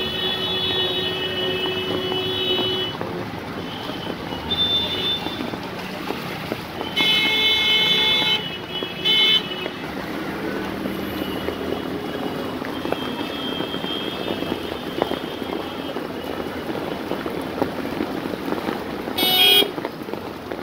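Vehicle horns honking in stalled traffic: one long honk at the start, several shorter honks in the middle, and a sharp loud blast near the end. Under them runs a steady wash of traffic noise from vehicles moving through floodwater.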